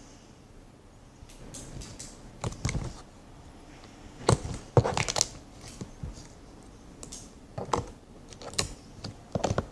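Slime being squeezed, stretched and poked by hand, giving irregular sharp clicks and crackly pops, loudest in a cluster in the middle and again near the end.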